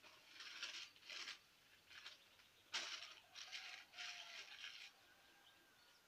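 Faint rustling and crinkling in about six short bursts, the loudest about three seconds in: hands working dry tinder at the base of a wooden beehive stack to light a fire.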